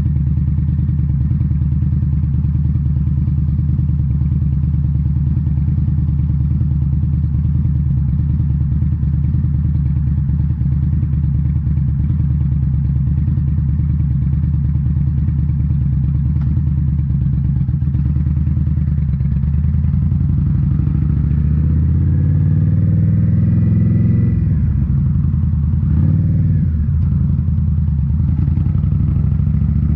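2018 Indian Scout Bobber's V-twin running through Rinehart slip-on mufflers at a steady cruise. About two-thirds of the way in, the revs climb for a few seconds, then fall back and settle.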